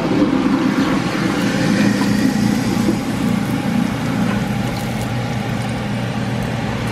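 Lemongrass, galangal, salam leaves and kaffir lime leaves heating in a little oil in a cooking pot, sizzling lightly over a steady mechanical hum and hiss.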